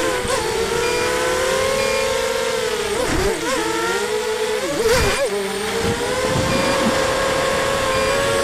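The ZMR 250 racing quadcopter's four 2300 kV brushless motors and 5x4 props whining, picked up close by its onboard camera. The pitch holds fairly steady, then sags and wobbles quickly with throttle changes near three and five seconds in, with rushes of noise, loudest about five seconds in, before settling again.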